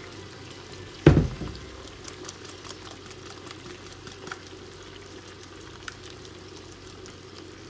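Shrimp frying in butter in a pan, with a steady sizzle and scattered small crackles as blended red chile sauce is strained into it. There is a single loud knock about a second in.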